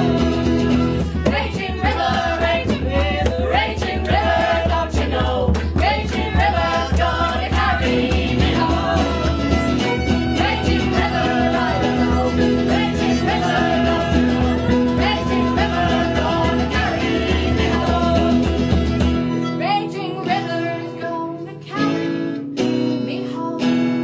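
A band playing a song live, with several voices singing over guitars, fiddle and keyboard. About three-quarters of the way through, the bass drops out and the song thins towards its final chords.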